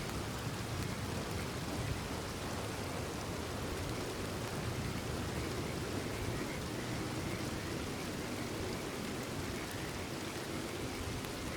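Steady rain falling, with faint frogs calling over and over.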